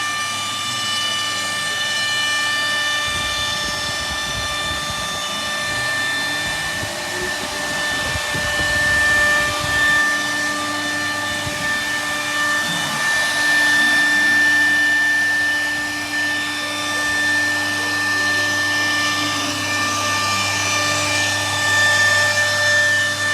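CNC router's spindle running with a steady high whine while milling wood, the cutting noise swelling and easing as the bit moves.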